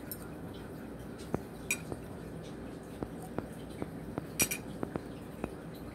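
Cutlery clinking against a soup bowl while eating: a scatter of light, irregular clinks and taps, the loudest about four and a half seconds in.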